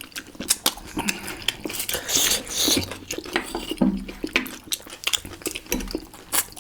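Close-up eating sounds: chewing and mouth noises with repeated short clinks of a spoon against a plate.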